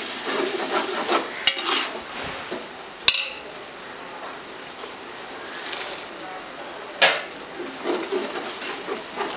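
Metal spatula stirring and scraping a thick, wet tomato-and-yogurt masala in an aluminium pot, the mix sizzling steadily. Three sharp clinks of metal against the pot stand out, the loudest about three seconds in.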